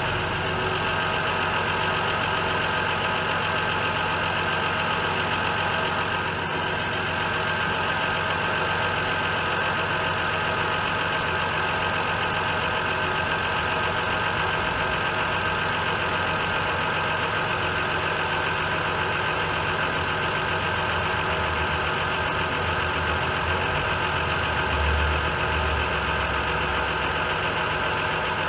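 Audi A4 3.0L V6 engine idling steadily on its first run after a timing belt and cylinder head repair, having not run for about nine months. The low rumble swells briefly near the end.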